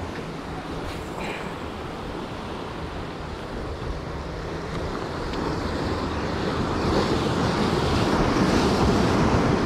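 Ocean surf washing against the jetty's rocks, with wind buffeting the microphone. The wash swells louder over the last few seconds.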